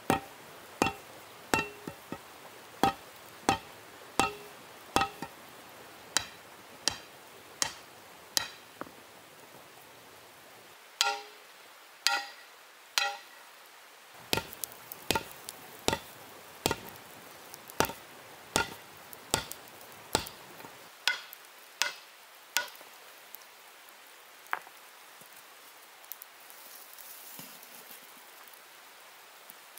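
Hand forging with a hammerstone on hot iron axe stock: steady blows about every three quarters of a second, each a sharp clack with a short ring. The hammering pauses for a couple of seconds about a third of the way in, then resumes and ends with a lone blow about four fifths of the way through.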